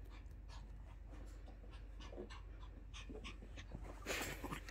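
Small long-haired dog panting quickly and faintly after its bath, about three or four pants a second. About four seconds in there is a louder rustle as the dog comes up close.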